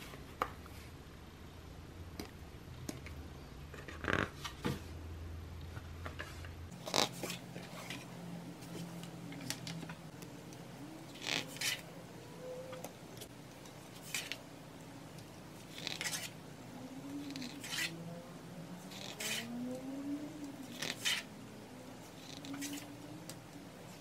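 Pages of a large hardcover photo book being turned and smoothed flat by hand, a crisp paper swish every two or three seconds. Faint dog barking sounds in the background.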